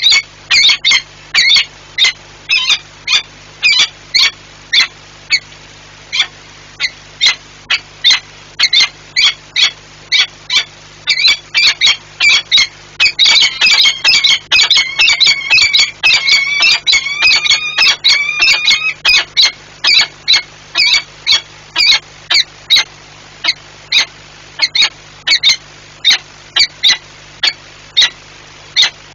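Peregrine falcons calling at the nest ledge: a long series of sharp, repeated calls about two a second, running together about halfway through into a dense stretch of overlapping, wavering calls before thinning out again. It is the pair's calling during a bonding display.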